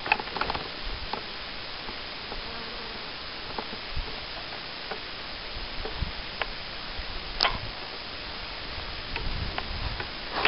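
Footsteps and rustling as someone walks through long meadow grass, with scattered soft clicks at irregular times over a steady hiss.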